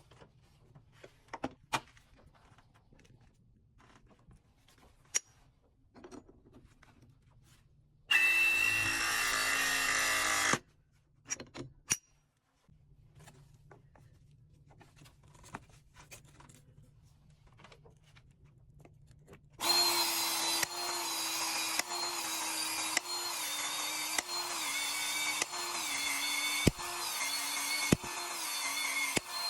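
Scattered handling clicks, then a battery press tool runs steadily for about two and a half seconds. From about twenty seconds in, a battery PEX expansion tool works in repeated short cycles, about one a second, expanding the end of the PEX pipe for the adapter.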